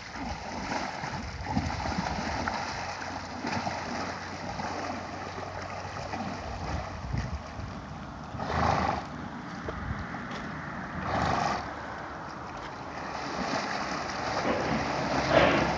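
Horse wading through shallow river water, its legs splashing steadily, with a few short louder bursts of sound.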